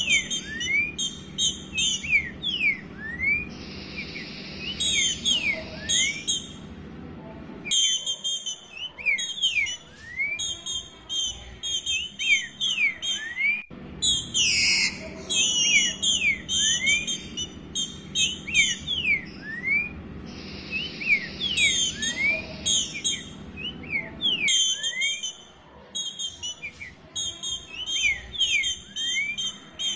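Female green-winged saltator (trinca-ferro) calling to solicit a mate: a rapid run of short whistled notes that slide up and down, mixed with thinner, higher chirps. The same phrase sequence comes round again about halfway through.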